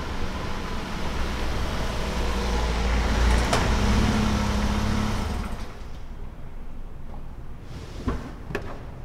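Ford Escape SUV rolling slowly and pulling to a stop, a low engine and tyre rumble that drops away about five and a half seconds in. Near the end, two sharp clicks as a car door is unlatched and opened.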